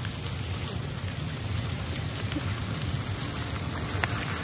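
Steady wind rumble on the microphone: a low, fluttering noise under an even hiss, with a single light click near the end.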